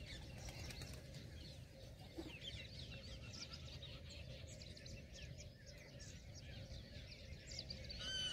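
Faint birds chirping: many short, high, overlapping calls, with one louder call near the end, over a low steady background rumble.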